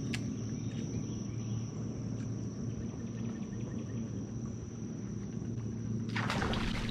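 Insects droning in one steady high-pitched note over a low steady hum, with a short rush of noise near the end.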